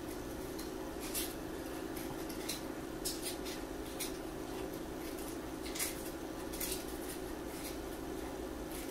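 Scissors snipping paper in short, irregular cuts, over a steady low background hum.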